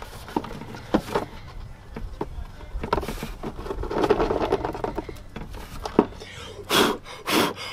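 Plastic clicks and knocks from a Subaru WRX's air filter box as its lid clips are worked and the panel filter is lifted out and put back, with a few louder rustling rushes near the end.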